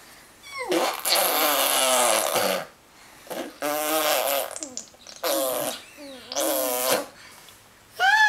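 Ten-month-old baby vocalizing in four loud, drawn-out bursts of wavering, breathy babbling, with a short rising squeal near the end.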